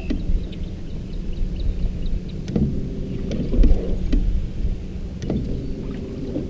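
Sounds of a small fishing boat on the water: a low rumbling wash with a steady low hum underneath, and scattered light taps and clicks.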